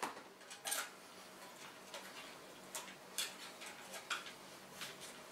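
Hands handling the wiring and cable ties inside a plastic growlight housing: faint, irregular small clicks and ticks, about a dozen over a few seconds.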